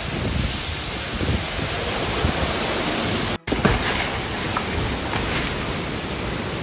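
Severe-thunderstorm wind and heavy rain: a steady rushing noise. It cuts out for an instant a little over halfway through and comes back as a second wind-and-rain recording with more hiss in it.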